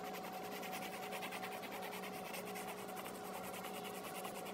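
Colored pencil scratching on paper in rapid back-and-forth coloring strokes, over a faint steady hum.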